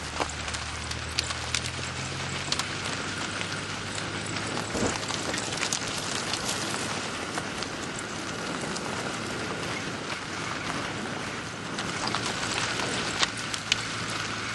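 Car tyres running over a rough gravel track, heard close to the wheel from outside the car: a steady crunching rush with frequent sharp ticks of stones flicked against the bodywork, over a faint engine hum.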